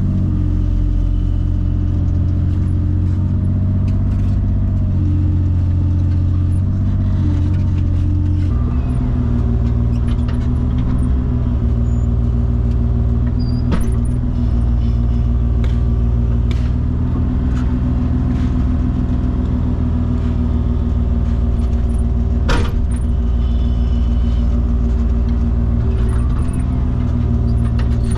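Heavy-equipment engine running steadily under load, its note shifting about eight seconds in, with a couple of sharp metal clanks.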